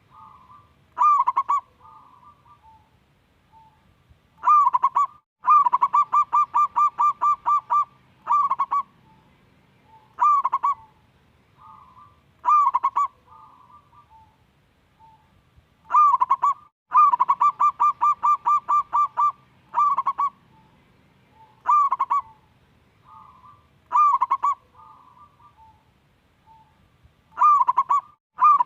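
Zebra dove (local perkutut) singing its cooing song: loud single coos every couple of seconds, twice breaking into a fast rolling run of about seven notes a second, with softer coos between phrases.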